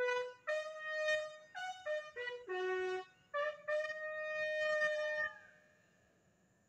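Military bugle call: a string of held brass notes stepping between a few pitches of the bugle's scale, with one long note in the middle, stopping about five seconds in.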